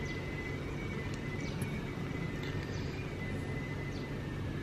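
Outdoor ambience: a steady low hum with a thin, steady high tone, and faint, short, falling bird chirps every second or so.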